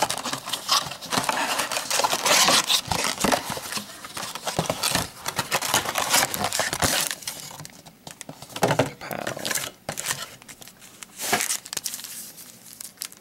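Cardboard trading-card blaster box being pulled open by hand, with busy rustling and scraping of cardboard. After that, foil card packs slide out with quieter, scattered crinkles.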